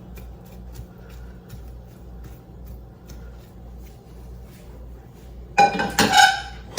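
Quiet kitchen background with a low hum, then about two thirds of the way in a loud run of clattering and clinking as a utensil knocks against a pan and plate while scrambled eggs are served up.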